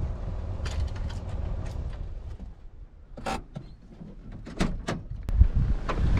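Wind buffeting the microphone as a low rumble, easing after about two seconds, followed by scattered clicks and knocks and a dull thump near the end.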